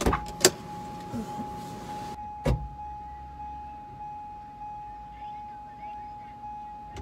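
A car's electronic warning chime repeating steadily, a little under two chimes a second, as left on when a door is open or the key is left in. A sharp knock comes about half a second in and a thump about two and a half seconds in.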